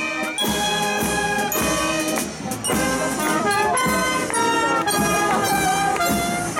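Marching brass band playing a tune: sousaphone, trumpets, saxophones and clarinet.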